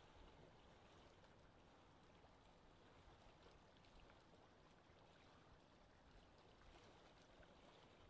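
Near silence: a faint, steady wash of small waves lapping at the water's edge.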